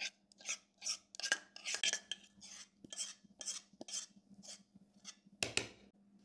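Spoon scraping thick chocolate custard out of a metal pot into a baking pan, in short strokes about two a second, with one louder scrape near the end.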